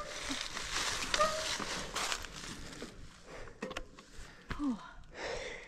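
Mountain bike riding along a dirt trail: a rushing of tyre and air noise with rattles and sharp clicks, and a brief squeak about a second in. The rushing fades after about three seconds.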